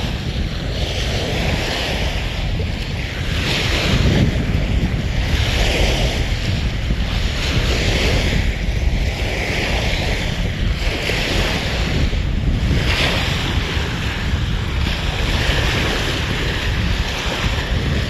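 Small waves breaking and washing up onto a sandy beach, in repeated surges every second or two, with wind rumbling on the microphone.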